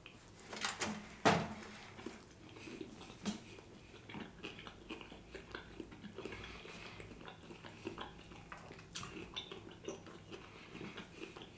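Close-miked mouth sounds of a man biting into a vegan Philly cheesesteak sandwich on a soft roll and chewing it. The loudest sound is a sharp bite about a second in, followed by a steady run of small chewing clicks and smacks.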